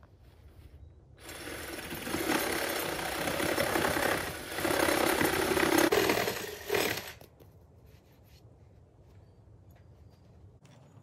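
A handheld power tool running against the wooden deck post, a rapid mechanical sound in a few bursts that starts about a second in and stops about seven seconds in.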